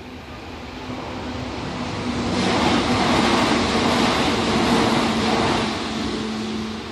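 A vehicle passing close by: a rushing noise that builds, is loudest from about two and a half to five and a half seconds in, then eases off, with a low steady hum underneath.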